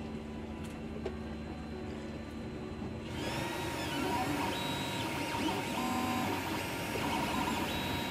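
FDM 3D printer running a print: from about three seconds in, its stepper motors give short whining tones that jump from pitch to pitch as the print head moves.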